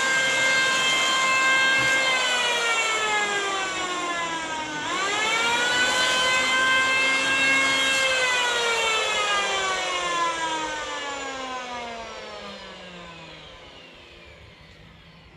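A high-pitched machine whine that winds down, spins back up about five seconds in, then winds down again and fades away.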